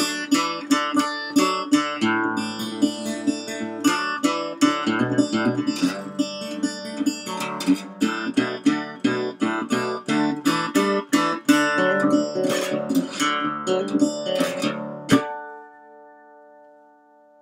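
Resonator guitar played with a slide, fingerpicked blues: a steady run of picked notes, ending about fifteen seconds in with a last struck chord that rings on and fades away.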